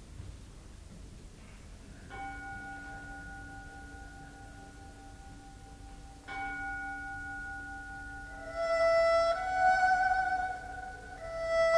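Opening of a Chinese traditional orchestra piece: two soft bell-like strikes about four seconds apart, each left ringing. A little after eight seconds in, a sustained melody with vibrato enters and grows louder.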